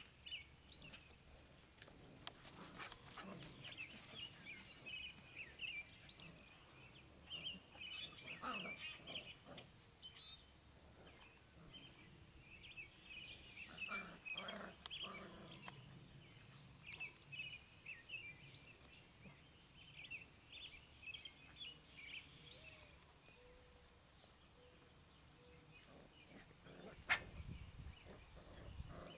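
Six-week-old Border Collie puppies play-fighting on grass, with small puppy growls and yips, over high chirping of birds. A single sharp click near the end.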